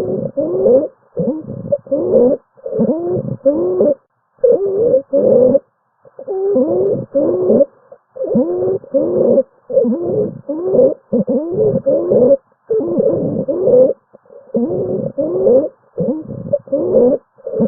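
Stridor heard through a stethoscope: short, pitched breath sounds with a rising tone, roughly one a second, with a few brief pauses. Stridor is the sign of a narrowed upper airway.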